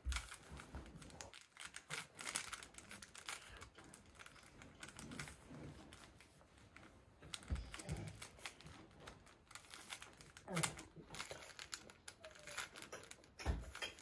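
A plastic 3x3 Rubik's cube being twisted by hand: a quick, irregular run of small clicks and rattles as its layers turn, with a few low thumps.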